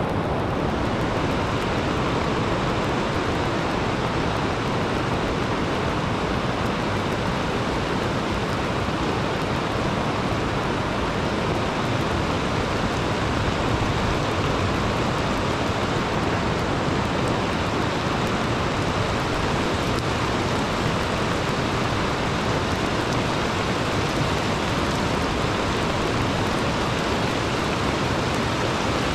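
Heavy rain pouring down: a steady, even hiss with no breaks.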